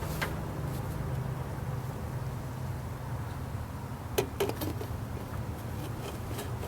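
Chevrolet 5.7 L Vortec (L31) V8 idling steadily, with a few light clicks about four seconds in.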